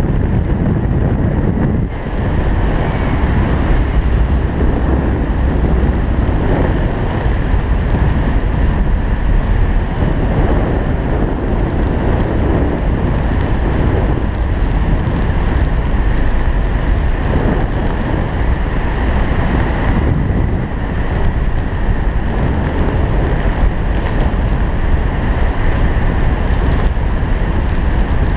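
Steady, loud wind noise on a helmet-mounted camera's microphone as a skydiver flies under an open parachute canopy.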